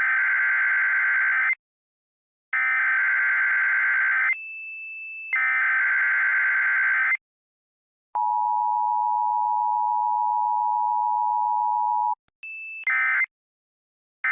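Emergency Alert System sequence: three long bursts of screeching digital SAME header data, with a short steady high beep before some of them, then the two-tone attention signal held steadily for about four seconds. Near the end, short data bursts begin, the end-of-message code.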